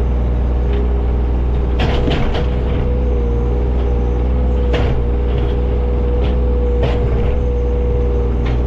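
John Deere 35G mini excavator's diesel engine running steadily with a constant hydraulic whine, as it works a brush and debris pile. Sharp knocks cut through about two, five and seven seconds in.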